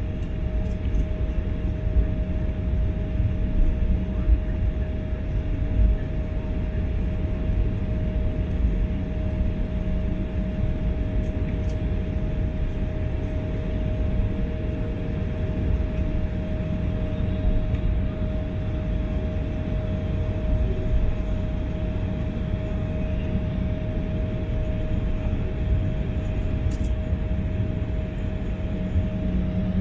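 Jet airliner cabin noise while taxiing: a steady low rumble of engines and rolling with a constant hum running through it.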